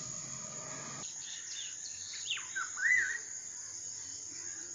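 Outdoor ambience of insects droning steadily in a high, even tone, with a bird calling a few quick falling notes and a short warbling phrase around the middle.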